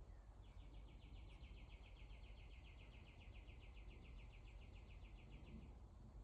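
A faint, high chirping trill of rapid, even pulses, about nine a second. It starts about half a second in and stops after about five seconds, over a low steady hum.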